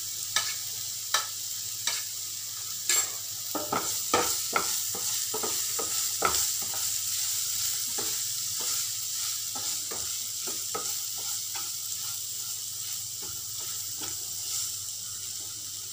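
Chopped capsicum and green chillies sizzling in oil in a non-stick frying pan, with a steady hiss. A wooden spatula stirs and scrapes against the pan in frequent short knocks, busiest in the first half and thinning out later.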